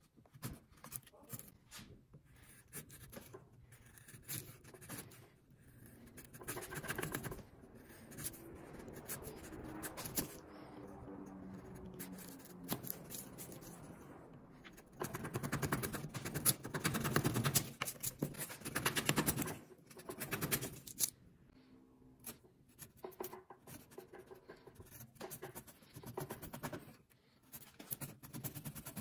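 Steel bench chisel paring softwood by hand: a run of short scraping and slicing strokes as thin curled shavings peel off, with two longer, louder stretches of steady paring partway through.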